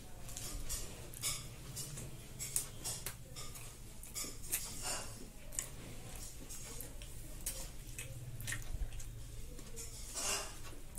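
Eating chicken pizza by hand: irregular soft clicks and crackles of chewing and of the slice being torn and touched against the plate.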